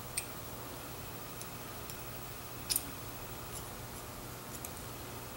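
Scattered light clicks and ticks of a small screwdriver working against a metal chainsaw carburetor as a stuck part is pried at. The loudest is a sharp double click about halfway through, all over a steady low hum.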